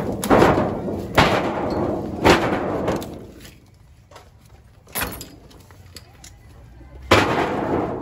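Heavy bangs on corrugated metal sheeting, each followed by a rattling, clattering crash: three in quick succession, a lull, then two more, the last about seven seconds in.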